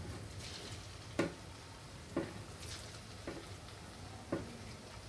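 Rice-flour ring murukku deep-frying in hot oil, a steady sizzle, left unstirred while it cooks. A sharp click sounds about once a second over it.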